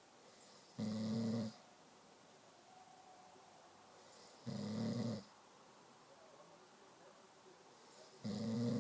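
Snoring: three short snores, each under a second long, coming about every three and a half seconds, the last one near the end.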